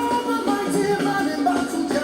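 Live gospel worship music: a band playing, with held melodic notes that glide between pitches.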